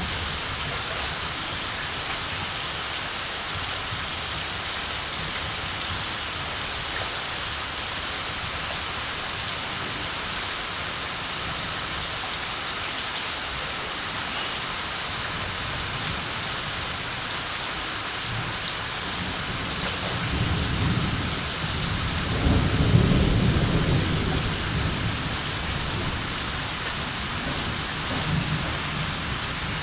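Steady rain falling, with a roll of distant thunder that rumbles up about two-thirds of the way through, peaks and fades out over several seconds.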